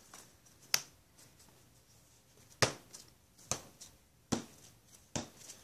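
Sharp taps and knocks on a plastic-wrapped craft cutting mat, made while handling a squeeze bottle of paint: five clear taps spaced just under a second apart, with a few fainter ticks between.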